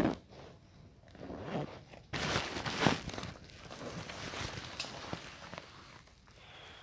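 Footsteps and rustling through forest undergrowth, irregular, loudest from about two to three seconds in.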